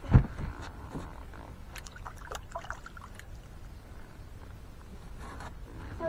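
A low thump just after the start, then light splashing and dripping water as a small catfish is reeled up to the surface and lifted out of the river, with a few faint clicks.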